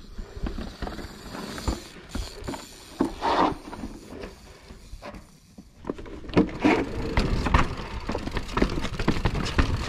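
Mountain bike ridden over rough, rocky trail: irregular knocks and rattles from the tyres and bike over a low rumble. It eases off briefly about halfway, then gets busier and louder for the last few seconds.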